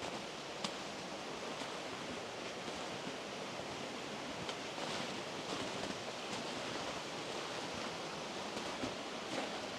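Steady rush of flowing water, with a few faint clicks here and there.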